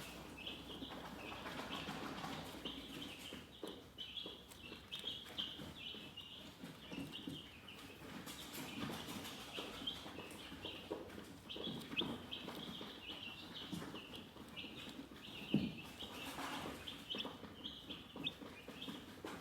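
Chickens chirping: a dense, constant stream of short high peeps, with lower clucking murmurs underneath. A single sharp low knock comes about three-quarters of the way through.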